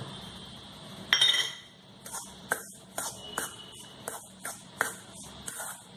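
Metal spoon scraping and clinking against a stainless steel bowl while stirring crushed biscuit crumbs with strawberry syrup: one ringing clink about a second in, then a run of short scrapes at about three a second.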